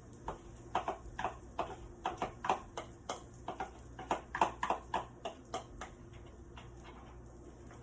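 A kitchen utensil tapping lightly and irregularly against cookware, about three taps a second, stopping about six seconds in.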